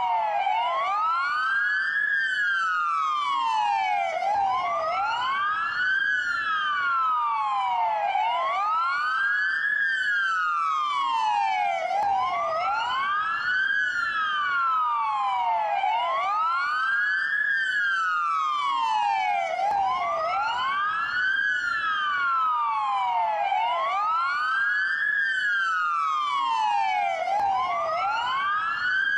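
Dual wail police siren: two siren tones, each rising and falling slowly in pitch about every four seconds, running slightly out of step so one trails the other.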